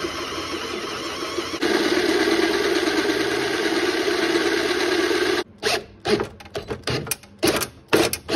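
Electric drill with a large cobalt bit drilling out a stripped lock bolt in a car door's latch, a steady whir that gets louder about one and a half seconds in and cuts off suddenly about five and a half seconds in. Short, irregular stop-start bursts follow.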